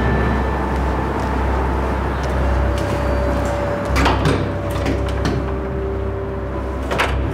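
A door being handled: a sharp clack about four seconds in and another near the end, over a steady low rumble and faint held tones.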